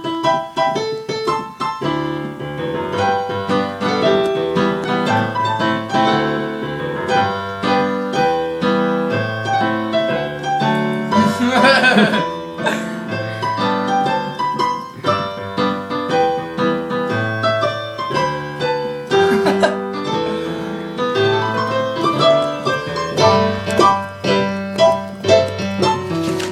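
Piano-voice music on an electronic keyboard: a steady run of notes and chords over a low bass line. Around the middle a short, wavering voice-like sound rises over the music.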